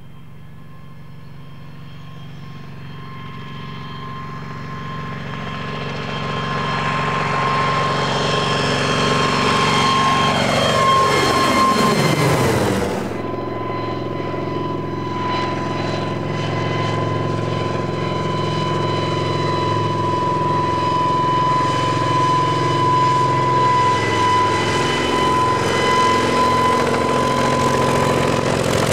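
Kamov Ka-26 helicopter, its two nine-cylinder radial piston engines and coaxial rotors, growing louder as it approaches over the first dozen seconds, its pitch falling steeply as it passes close. The sound then changes suddenly to a steady, loud, even running that holds to the end.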